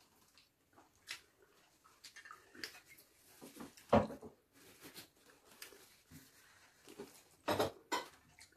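Quiet sounds of people eating with their hands from metal plates: chewing and small scattered clicks and rustles. There is a sharp knock about four seconds in and a short cluster of louder noises near the end.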